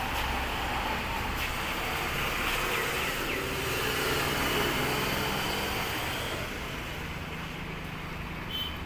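Street traffic noise: vehicles running and passing as a steady rumble and hiss, with a brief high tone near the end.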